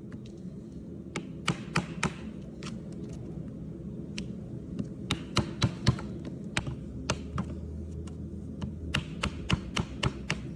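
Farrier's cutting tool biting through hard, overgrown hoof frog horn: irregular sharp clicks and cracks coming in clusters, over a steady low hum.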